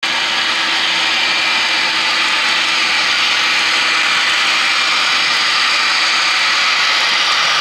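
HO scale sound-equipped model diesel locomotive, a Canadian Pacific GE ES44AC, its sound decoder playing diesel engine sound through its small onboard speaker as it runs. The sound is steady with a strong high hiss.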